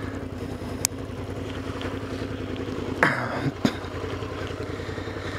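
A 2006 Suzuki SV650's 90-degree V-twin idling steadily with an even low pulse, just before a test ride. Two short noises break in a little after three seconds in.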